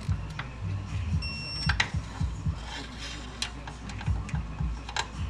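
Scattered metallic clicks and knocks from hand tools tightening oil pan bolts, over a low steady hum, with a short high beep about a second in.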